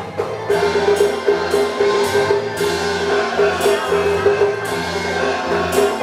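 Taiwanese opera accompaniment playing an instrumental passage: a repeating melody note pulses steadily under regular percussion strokes, with no singing.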